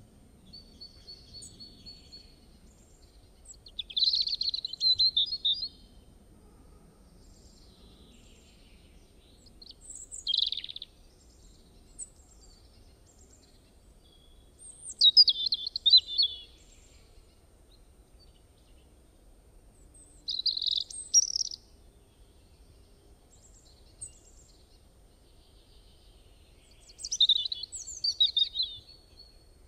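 A songbird singing short, fast phrases of high notes, five or six phrases several seconds apart, over a faint low background hiss.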